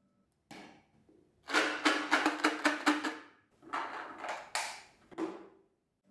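Plastic supplement bottle handled and its screw cap twisted open: a knock, then a quick run of sharp plastic clicks and rattles, another cluster, and a final click.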